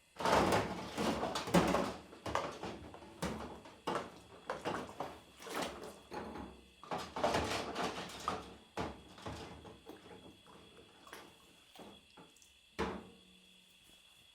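Kitchen utensils and dishes clattering and clinking together while being washed up: a dense burst of clatter at the start, then scattered knocks and clinks, with one sharp knock near the end.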